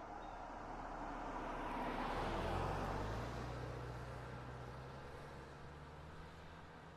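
A single car passing by on the road: tyre and engine noise builds to a peak about two and a half seconds in, then fades as it moves away, leaving a low engine hum.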